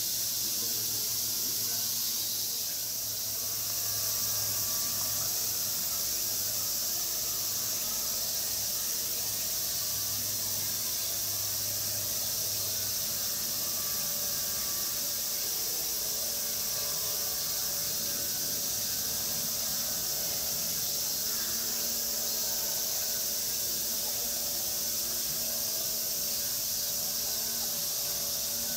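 Steady high-pitched background hiss with a faint low hum underneath.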